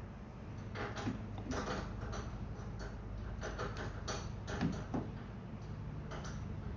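Irregular light clicks and knocks, a dozen or so scattered unevenly, of washing-machine parts being handled during the repair, over a steady low hum.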